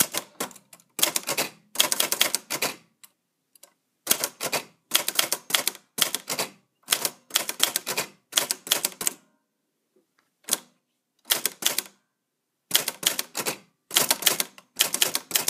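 Typewriter keys being struck in quick bursts of clicks, with short pauses between the bursts, as a line of text is typed out.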